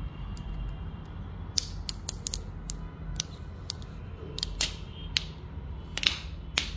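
Fingers picking and peeling at a plastic sticker on the edge of a TV, making a string of irregular sharp clicks and crackles over a steady low hum.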